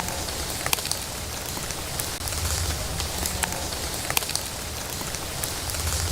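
Steady rain falling, with scattered sharp taps of drops striking close by and a low rumble underneath.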